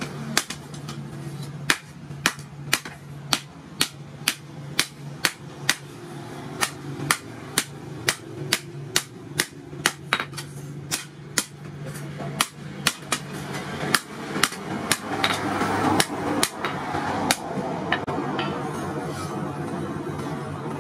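Hand hammer beating a red-hot steel hoe blade, cut from a disc plough, on a small stake anvil: sharp metal-on-metal blows about two a second. The blows stop a few seconds before the end, leaving a steady rushing noise.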